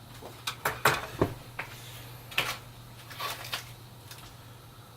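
Light clicks and taps of SATA data cables being handled, a quick cluster of about a dozen sharp ticks over three seconds, over a steady low hum.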